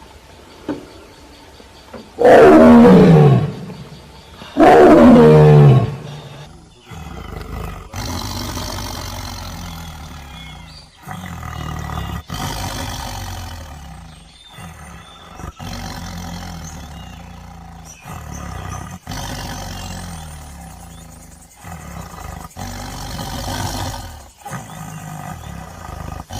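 Tiger roaring twice, two very loud roars that fall in pitch, followed by lower, ongoing growling and rumbling broken by several abrupt cuts between clips.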